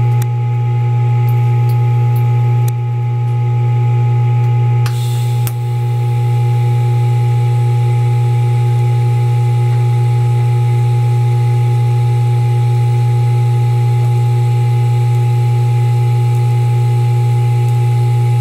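A loud, steady low electrical hum with several steady higher tones. A few faint clicks come in the first seconds, and a brief crackle about five seconds in as the TIG welding arc is struck on the stainless steel flange.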